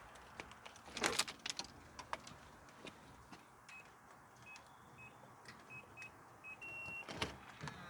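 About six short electronic beeps at one pitch, irregularly spaced, then a longer beep, among faint clicks and knocks of handling, the loudest knocks about a second in and near the end.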